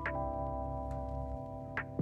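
Electronic background music: sustained keyboard chords over a slow beat of deep kick drums and sharp clap-like hits.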